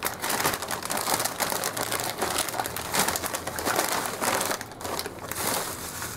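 Sabritones foil snack bag crinkling as it is tipped and shaken, with the crunchy snacks spilling out and clattering onto a sheet of paper in a dense run of small crackles.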